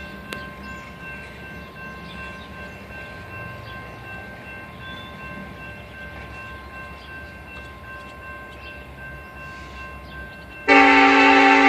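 Low rumble with a faint steady whine, then, about ten seconds in, the air horn of a Ferromex EMD SD70ACe locomotive starts suddenly and loudly, a steady chord of several notes held into the end.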